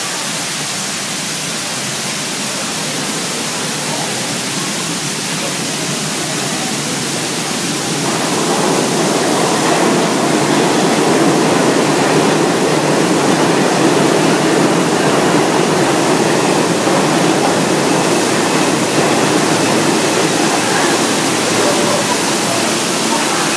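Water gushing from a broken pipe, cascading steadily onto the subway platform edge and tracks. About eight seconds in, a subway train pulls into the station through the downpour and the sound grows louder and fuller, with a faint high squeal near the end.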